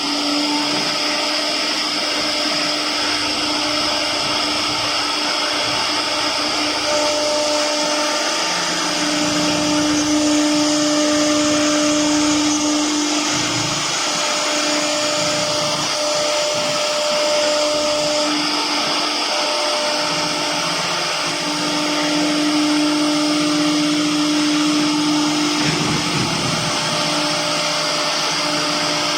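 Air-cooled spindle of a CNC wood router running at high speed while cutting wood: a steady high whine over hiss, growing louder and softer every few seconds as the cutting load changes.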